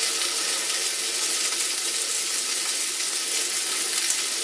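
Bacon-wrapped steak sizzling in a small cast iron skillet: a steady, dense frying hiss.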